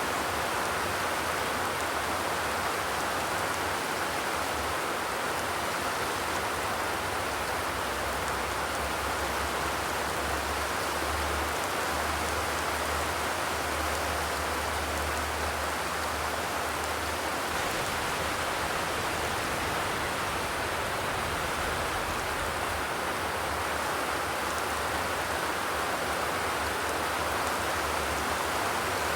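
Steady, even rainfall, with no thunder.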